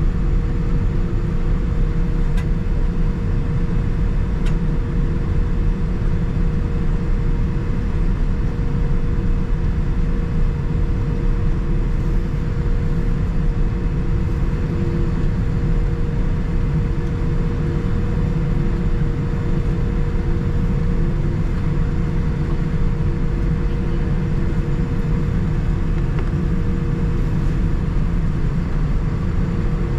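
Steady low rumble of a Boeing 787-9's engines and airflow heard inside the cabin, with a few faint steady hums above it.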